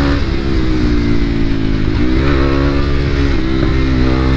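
Motorcycle engine running under way, its pitch easing down and then rising again twice as the throttle is rolled off and back on.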